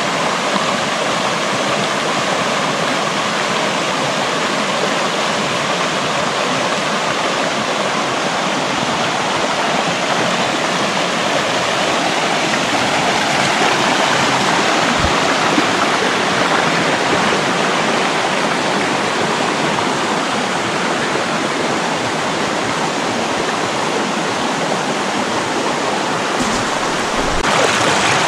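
Creek water rushing and splashing over boulders in shallow rapids, a steady rush that gets a little louder near the end.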